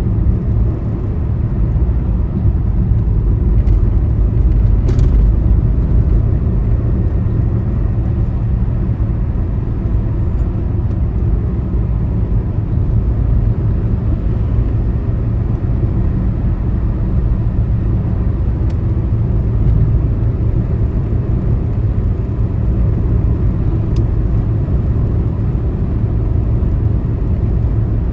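Vehicle travelling on a highway: a steady low rumble of engine and tyre noise with a faint steady hum.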